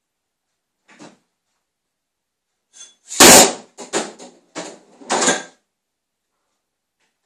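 Kitchen cupboards banging: a faint knock about a second in, then a single loud bang about three seconds in, followed by a quick run of knocks and rattles lasting about two seconds.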